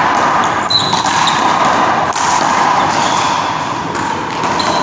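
One-wall handball rally: the small rubber ball smacks off the wall and the players' gloved hands. A short sneaker squeak comes about a second in, all over a steady loud hiss.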